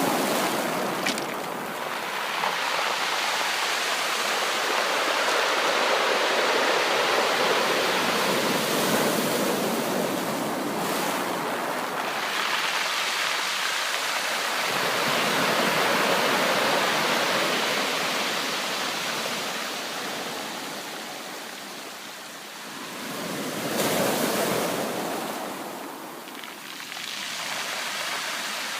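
Ocean surf: waves breaking and washing up a beach in a continuous rush that swells and fades every several seconds, with a stronger surge about 24 seconds in.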